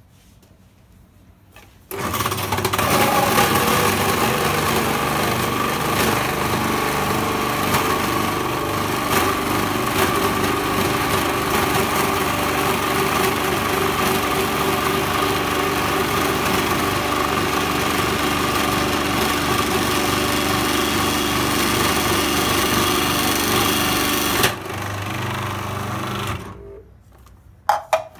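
Electric kitchen appliance motor grinding Parmesan cheese: it starts about two seconds in, runs steadily and loudly under load for some twenty seconds, then runs quieter for about two seconds before stopping.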